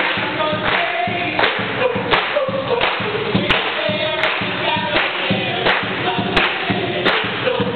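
Choir singing with a sharp percussive beat about every three-quarters of a second.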